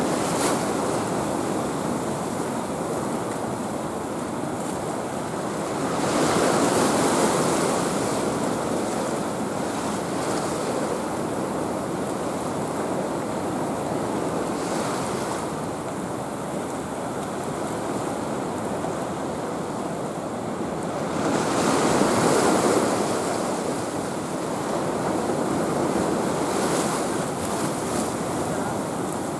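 Sea waves washing in a swell, with wind on the microphone. The wash swells louder twice, about six seconds in and again about twenty-two seconds in.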